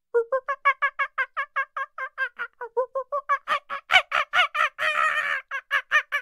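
A rapid run of short, pitched animal calls, about five a second, growing louder and harsher about halfway through, with a longer rasping call near the end.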